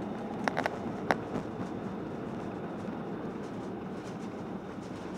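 Steady cabin noise of an Airbus airliner rolling along the ground after landing: an even rumble of the engines and wheels. A few sharp clicks or knocks come about half a second to a second in.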